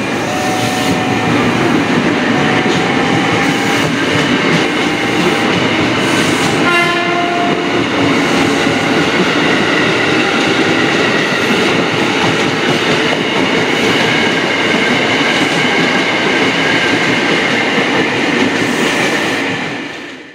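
KRL Commuter Line electric train running past along the platform: a steady, loud rumble and wheel clatter with a thin electric whine, and a brief horn note about seven seconds in. The sound fades out near the end.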